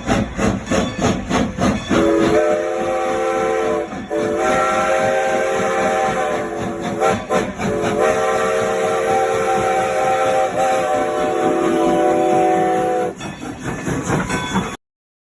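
Train horn sounding a long multi-tone chord over the rhythmic clatter of train wheels on rail joints. The horn starts about two seconds in, breaks off briefly a few times, and stops near the end, leaving the wheel clatter until it cuts off.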